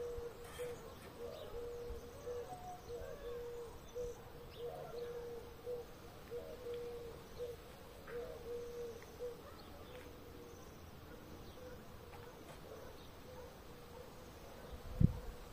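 Birds calling in a garden: a low call in short repeated notes for about the first nine seconds, with a few faint higher chirps. A single dull thump near the end is the loudest sound.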